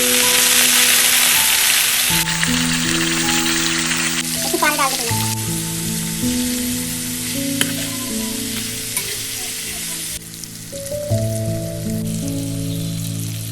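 Food sizzling and frying in a hot pan. It is loudest over the first few seconds and then eases off, with background music of sustained notes playing throughout.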